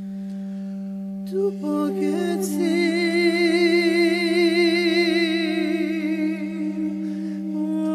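A woman's voice in an Armenian song holds a long note with wide vibrato over a steady low drone. The voice comes in about a second in with a few short notes and starts another phrase near the end.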